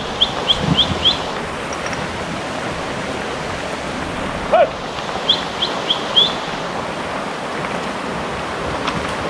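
Steady rushing of a shallow river over stones. A bird calls over it in two series of five quick rising chirps, one at the start and one around five to six seconds in. A single short low call sounds near the middle.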